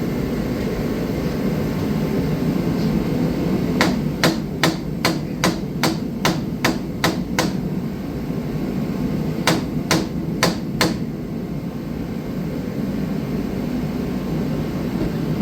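A hammer tapping a heated hand grip onto a snowblower handlebar over wet epoxy: a quick run of about ten strikes, then four more after a short pause. A steady low hum runs underneath.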